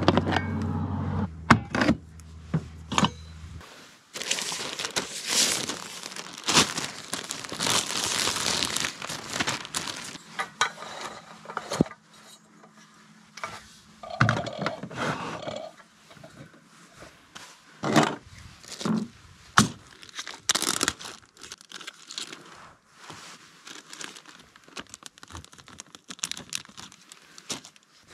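Plastic packaging crinkling and rustling, with irregular knocks and scrapes as food packs, jars and cooking gear are handled in and out of hard plastic storage totes.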